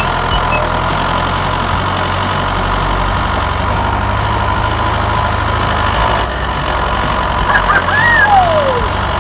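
A vehicle engine running steadily, with a short high sliding tone that rises and then falls away about eight seconds in.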